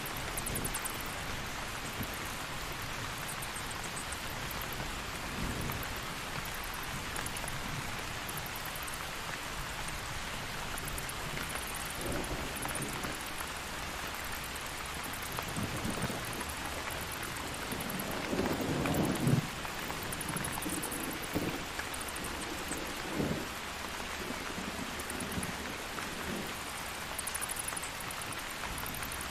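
Steady rain with thunder: low rumbles swell several times in the second half, the loudest about two-thirds of the way through.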